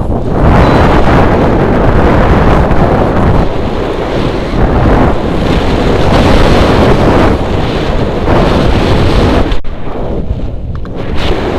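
Wind rushing over the microphone of a paraglider's body-mounted camera in flight, loud and gusting in swells, easing off for a moment about ten seconds in.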